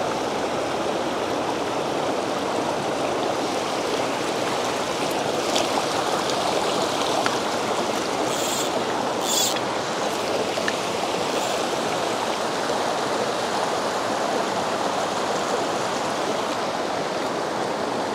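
Steady rush of the Tellico River, a fast mountain trout stream, flowing over rocks close by, with two brief sharper hisses partway through.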